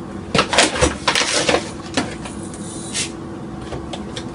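Dry rice being scooped out of a plastic bag with a cup and poured: the bag crinkles and the grains rattle and pour in a run of short bursts during the first second and a half, with a couple more later.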